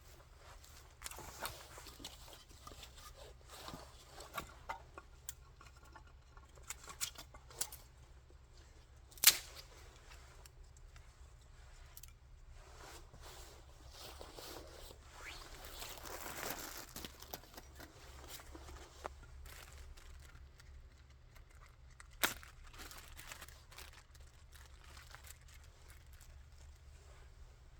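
Scattered rustling and small clicks of objects being handled, with two sharp knocks, one about nine seconds in and one about twenty-two seconds in, over a faint steady low hum.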